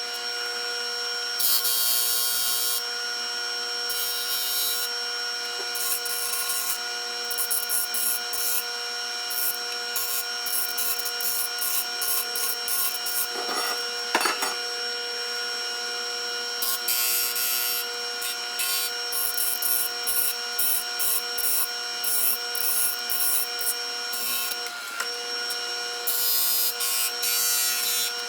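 Rhythmic rasping and rubbing strokes of hand work on PVC pipe, in quick irregular runs with a few louder scrapes midway, over a steady hum of several high tones.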